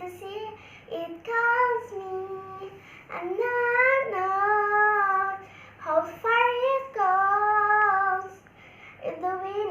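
A young girl singing a ballad without accompaniment, holding long, sustained notes in several phrases with short breaths between them.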